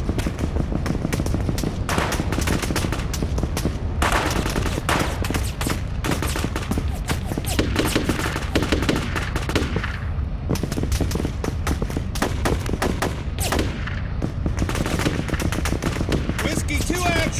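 Battle sound effects: sustained automatic and small-arms gunfire, many rapid overlapping shots, over a steady low rumble.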